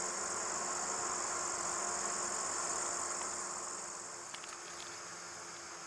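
Steady high-pitched insect chorus, with a lower buzzing that fades about four seconds in.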